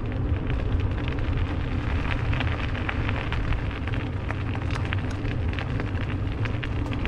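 Wind buffeting the microphone over the crackle of a Surly Ogre touring bike's tyres rolling across a coarse, gritty sealed surface.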